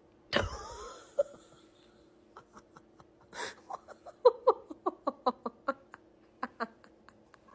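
A person laughing in a run of short, pitched bursts, starting with a breathy gasp about three seconds in. Near the start there is a sudden, loud, noisy sound with a wavering pitch.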